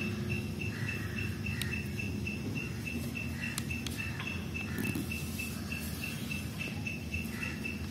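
A cricket chirping steadily on one high tone, about six pulses a second. There are faint rustles and a few light ticks from craft paper being folded and creased by hand.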